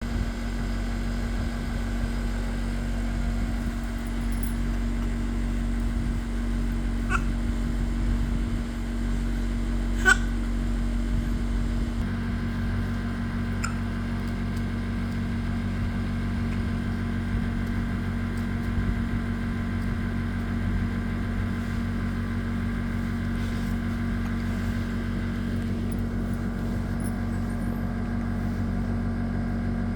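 A baby hiccuping three times, a few seconds apart, each hiccup short and sharp, the second the loudest. They sound over a steady machine hum whose tone changes about a third of the way through.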